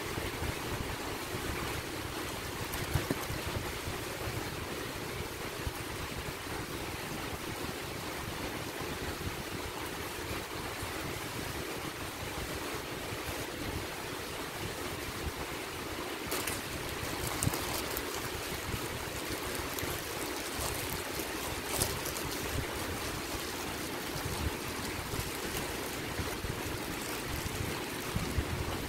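Steady rushing background noise, with a few short crackles about halfway through from a crunchy puffed-grain snack and its plastic wrapper as it is eaten.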